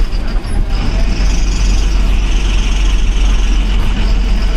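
Eicher bus diesel engine running, heard from inside the driver's cabin as a loud, steady low rumble. A high whine joins it about a second in and holds.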